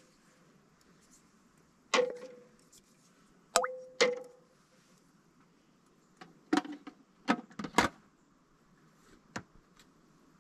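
Glass canning jars being handled and set down: three sharp clinks that ring briefly, about two, three and a half and four seconds in, then a quick run of lighter knocks a little past the middle and one more near the end.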